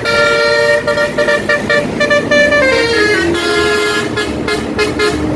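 Bus telolet musical air horn (basuri type) playing a tune of held notes that step from one pitch to another, with a downward slide about halfway through onto a lower note that is held to the end.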